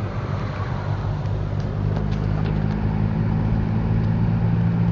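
Car engine and road noise heard from inside the cabin while driving slowly; the engine hum grows a little stronger about halfway through.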